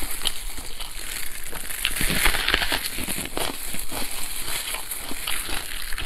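Close-up eating sounds of a person chewing braised pork knuckle: wet chewing and smacking with many small irregular crackles.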